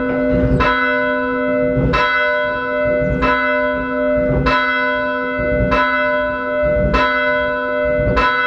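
A single church bell tolling, struck about seven times at an even pace of roughly one stroke every second and a quarter, each stroke ringing on into the next.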